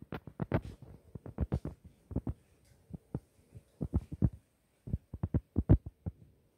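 Footsteps on timber floorboards: a run of irregular low thumps in clusters, with a pause of about a second midway.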